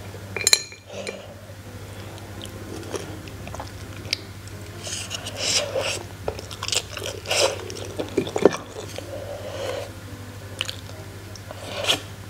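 Close-miked eating sounds: a person slurping and chewing instant fried noodles in irregular bursts.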